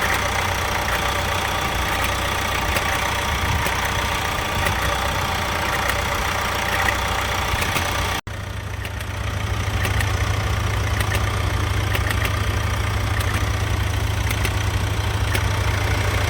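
Vauxhall Insignia 1.6 CDTI diesel engine idling steadily, with light clicks and rattles over the running, which the owner takes for the strange chain noise that has come back. The sound breaks off abruptly about eight seconds in and picks up again straight after.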